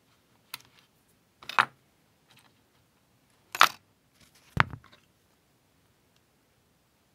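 A handful of separate sharp clicks and knocks of small metal parts being handled and set down on a workbench: pliers, steel jump rings and pieces of cut license plate. The three loudest knocks come near the middle, the last with a duller thud.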